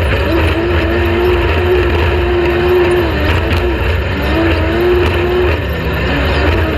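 Off-road race vehicle's engine running at high revs, its pitch holding steady and dipping briefly several times as the throttle is eased and picked back up, over a constant deep rumble.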